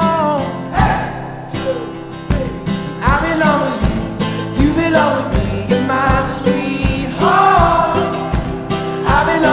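Background music: a sung melody over acoustic instruments with a steady beat.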